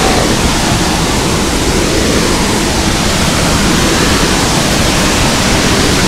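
A large waterfall with several streams pouring over rock, giving a loud, steady rush of falling water with no break or change.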